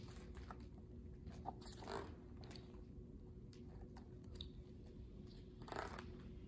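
Pages of a hardcover picture book being handled and turned: a few soft, brief paper rustles, the longest near the end as a page is flipped over.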